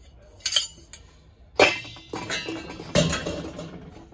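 Brass pots clinking and knocking against each other as they are handled, each strike ringing on briefly. There are three main knocks, at about half a second, one and a half seconds and three seconds in, with lighter clatter between the last two.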